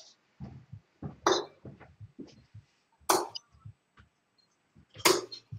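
Three steel-tip darts striking a bristle dartboard one after another, about two seconds apart: three short, sharp thuds.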